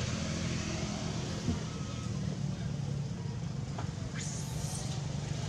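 Steady low hum of a motor vehicle's engine running nearby.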